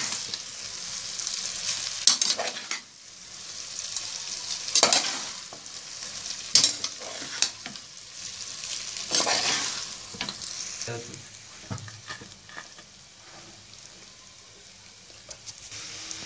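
Boiled noodles and vegetables sizzling in oil in an aluminium pot as they are tossed and stirred with a steel ladle, with a few louder scrapes of the ladle against the pot. The frying is quieter over the last few seconds.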